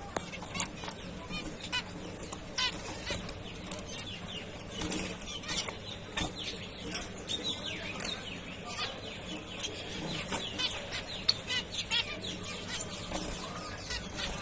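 Several zebra finches calling together: a dense stream of short chirps, many falling in pitch, overlapping one another throughout.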